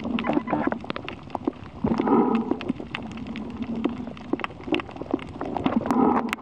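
A diver's breathing heard underwater: noisy surges of breath about every four seconds, one about two seconds in and another near the end. Under them runs a constant crackle of sharp clicks, the snapping of reef shrimp.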